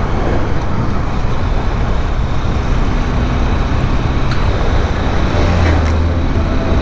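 A Bajaj Dominar 400 motorcycle cruising at highway speed: wind rushing over the rider-mounted microphone, with the single-cylinder engine and tyre noise running steadily underneath.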